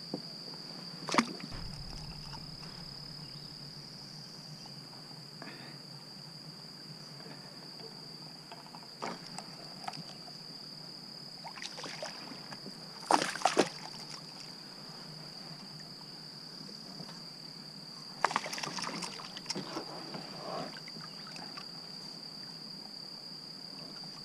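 Steady, high-pitched drone of insects, broken by scattered sharp knocks and splashes: a loud knock about a second in, a splash at the water's surface about halfway through, and a run of smaller splashes and knocks about three-quarters of the way through.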